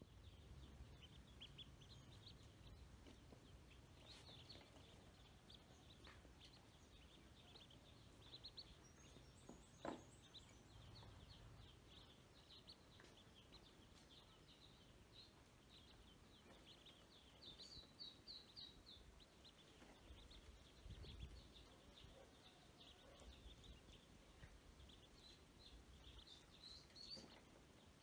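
A group of ducklings peeping quietly: many short, high peeps overlapping without pause, over a faint low rumble.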